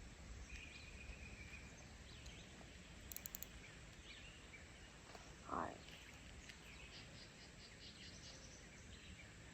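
Quiet outdoor ambience with a low steady hiss and faint, scattered bird chirps, plus one short high rattle a few seconds in.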